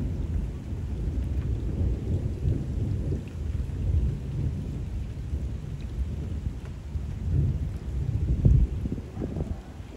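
Rolling thunder rumbling low and continuously, swelling to its loudest about eight and a half seconds in and then easing off, over the steady patter of rain falling on canal water.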